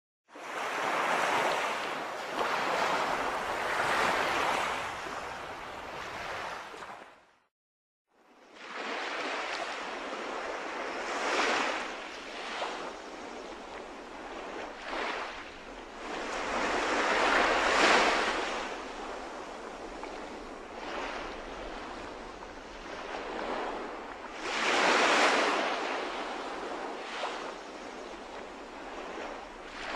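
Surf on a shore: a steady rushing wash that swells and fades every few seconds. It cuts out completely for about a second around seven seconds in.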